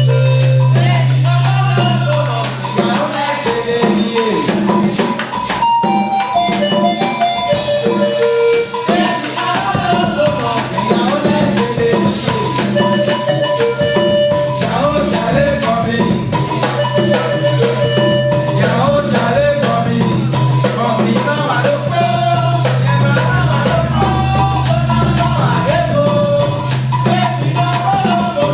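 Music with a voice singing over drums and percussion, a steady low bass line underneath and a regular beat.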